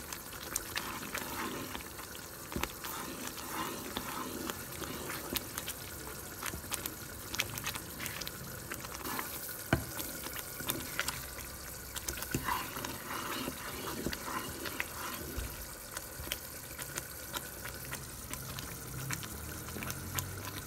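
Thick fruit jam purée simmering in a pan, bubbling with a steady hiss and frequent small pops as it cooks down to jam consistency.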